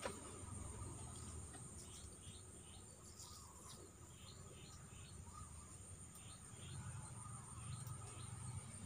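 Faint bird chirping outdoors: short series of quick falling chirps, about two seconds in and again after six seconds, over a steady faint high hum.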